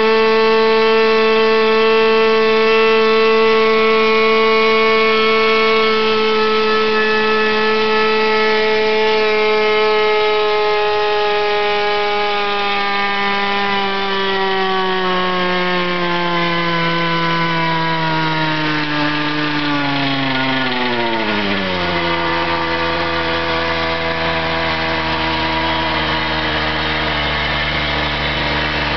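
Small model engine on a test stand running fast with a steady high note, then slowing over several seconds. Its pitch drops steeply about 21 seconds in and settles to a lower, steady idle.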